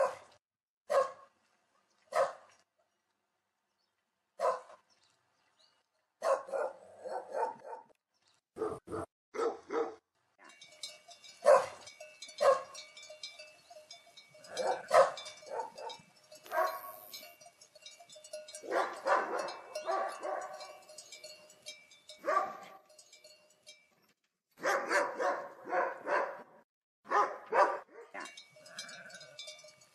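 A dog barking repeatedly: single barks about a second apart at first, then quicker runs of barks from about six seconds in.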